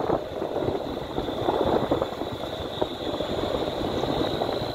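A vehicle driving along a paved road, with steady engine and tyre-on-road noise and small irregular knocks, plus a faint steady high-pitched tone.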